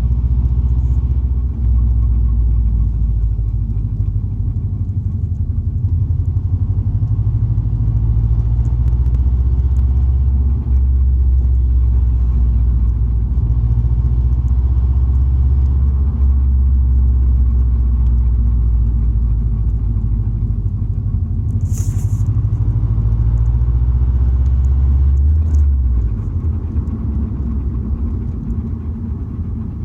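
2005 Subaru Impreza WRX running with a steady low rumble and the scraping, grinding noise whose cause the owner cannot find. A short high-pitched sound comes about three-quarters of the way in, and the rumble drops off soon after.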